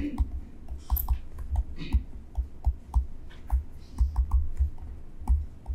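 Stylus pen tapping and scratching on a tablet screen as words are handwritten: an irregular run of quick light clicks, several a second, each with a dull thud.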